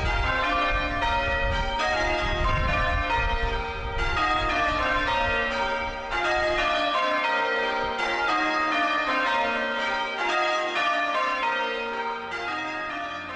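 Church bells being change-rung, struck one after another in quick succession. A low rumble runs under the first half, and the ringing fades out near the end.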